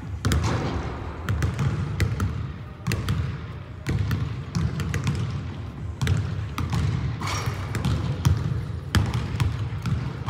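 Basketballs bouncing on a hardwood gym floor: irregular knocks from several balls being dribbled and shot at once.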